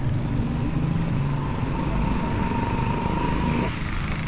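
A motor vehicle's engine running with road and traffic noise, and a steady high whine that cuts off suddenly near the end.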